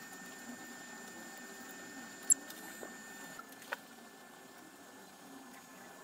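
Quiet handling of cotton thread being wound and tied off on the small copper-plated nails of a string-art board, with a sharp click a little over two seconds in and a smaller one about a second later. A faint steady high whine runs under it and stops about halfway through.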